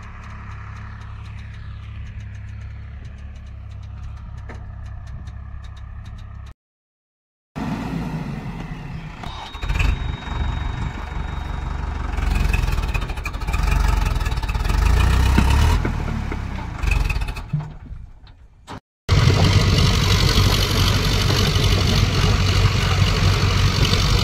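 Diesel engines working: a steady low rumble, then a JCB backhoe loader and a tractor surging unevenly with clatter while the trolley is loaded with earth. After a short cut, the Digitrac tractor's three-cylinder diesel runs steadily and loudly under load as it pulls the full trolley.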